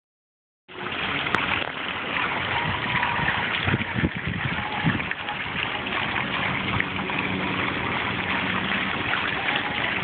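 Water from a mosaic fountain spilling from its spout and splashing steadily into the basin, starting abruptly just under a second in.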